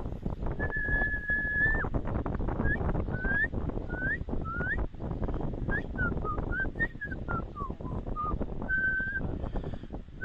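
Wind buffeting the microphone, with a series of clear whistled notes over it. There is a long held note, then short rising slurs and a falling run, and another held note near the end.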